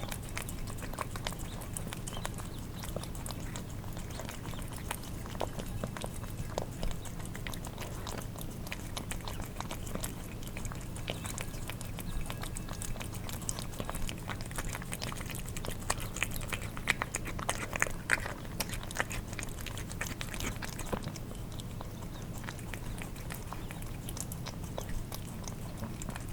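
Cats eating wet cat food: wet licking, lapping and chewing smacks, a steady stream of small clicks that gets louder and busier about two-thirds of the way through, over a steady low hum.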